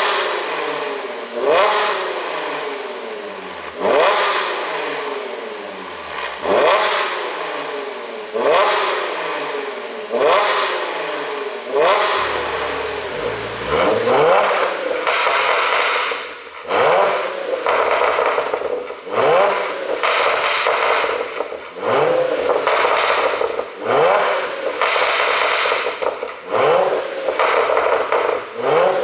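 2016 Audi A6 50 TFSI quattro engine revved in repeated short blips, each rise followed by popping and crackling from the exhaust as the revs fall: the 'pop and crackle' overrun tune. The blips come about every two seconds, closer together in the second half.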